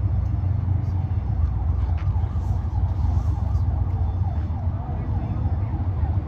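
Fire truck siren warbling quickly up and down, about three swings a second, faint under a steady low rumble.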